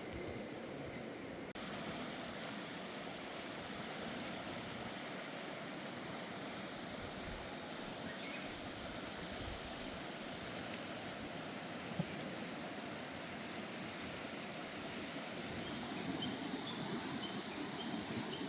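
Steady rush of a flowing mountain river, with a high, short chirp repeating rapidly, a few times a second, from shortly in until near the end. One sharp knock comes about two-thirds of the way through.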